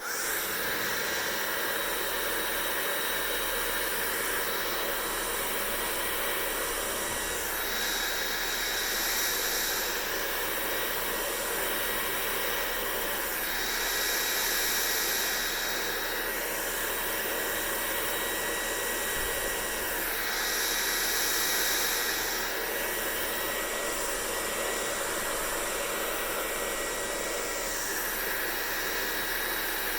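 Hair dryer running steadily: a loud rushing airflow with a thin high motor whine. The hiss swells several times for a few seconds.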